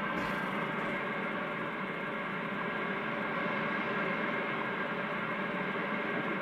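Receiver static from a Kenwood TS-440S HF transceiver tuned in AM to the WWV time station on 10 MHz through an amplified mini-whip active antenna: a steady, pretty noisy hiss with the weak station faintly under it. The high noise floor shows the mini whip's poor reception of this weak, fading signal.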